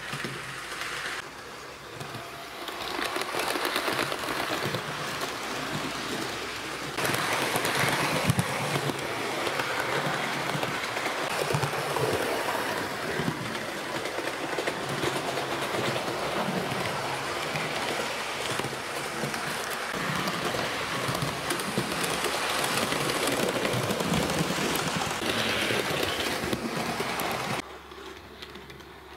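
Hornby 2-HAL OO-gauge model electric train running on the layout track: a steady motor whir with a rapid clatter of fine clicks. The sound drops away abruptly near the end.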